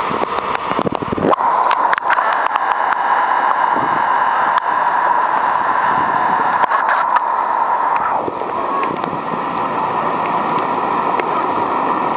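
Floodwater rushing steadily, a continuous wash of water with scattered sharp ticks and splashes.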